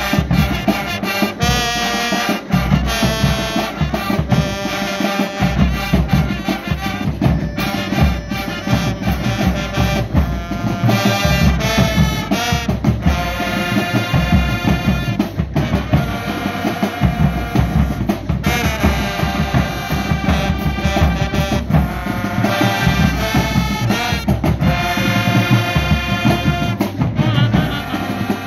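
Marching band playing: a brass section of trumpets, saxophones and sousaphones over a drumline of snare and bass drums, keeping a steady beat.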